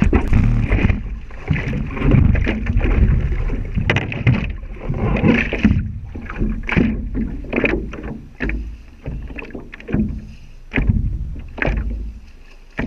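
Water splashing and slapping around a small boat such as a kayak, in irregular surges about once or twice a second.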